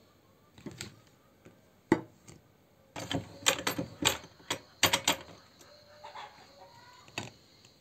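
Handling clicks and knocks as toothpaste tubes and a hand-crank meat grinder are moved about on a table and ceramic plate. There is a sharp knock about two seconds in, a busy run of knocks from about three to five seconds in, and a last knock near the end.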